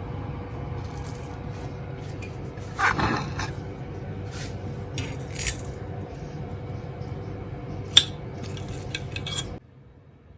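Plates and utensils clinking and scraping as fried chicken nuggets and raw vegetables are plated, over a steady kitchen hum. There is a louder scrape about three seconds in and a sharp clink about eight seconds in, and the sound drops away shortly before the end.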